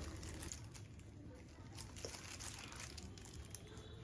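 Faint rustling of a disposable plastic glove handling wet, softened pickled-radish slabs, with a few soft ticks as the pieces are moved from the dish of liquid into a steel bowl.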